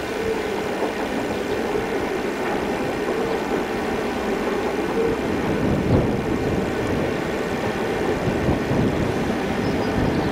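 Two DC class diesel-electric locomotives on a coal train, engines running steadily as the train approaches, with a single sharp thump about six seconds in.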